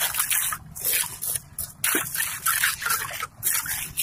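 Steel hand trowel scraping and smoothing wet concrete in quick, irregular repeated strokes.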